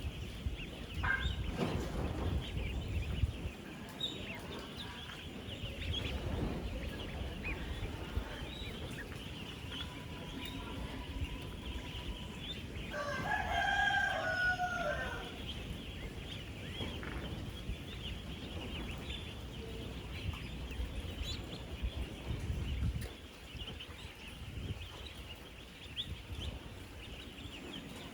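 Thousands of 10-day-old ducklings peeping together in a dense, continuous chorus. About halfway through, one louder, drawn-out call of about two seconds stands out above the chorus.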